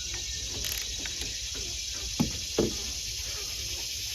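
Two short knocks about two seconds in, less than half a second apart, over a steady background hiss.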